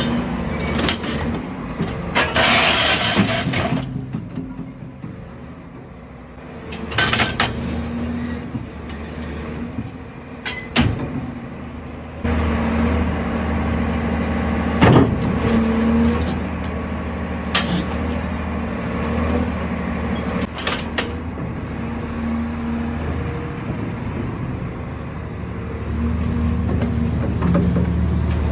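A large Caterpillar tracked excavator's diesel engine running, picking up and getting louder about halfway through. A brief loud hiss comes a couple of seconds in, and a few sharp metal knocks come later.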